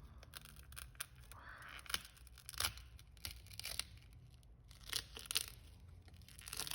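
Irregular crackles, clicks and short tearing sounds as the damaged phone screen is pried and peeled away from its adhesive.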